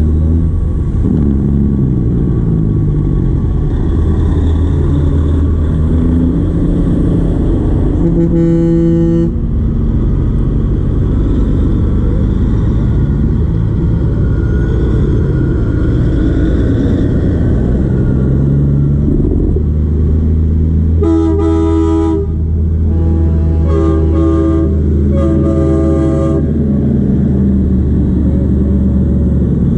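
Diesel engines of semi trucks rumbling past at parade pace, their pitch rising and falling. Truck air horns sound once about eight seconds in, then three blasts close together about two thirds of the way through.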